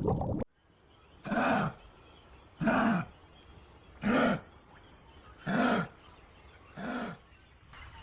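An animal calling: five short calls, each under half a second, rising then falling in pitch, repeated about every second and a half. Before the first call, a noisy hiss cuts off about half a second in.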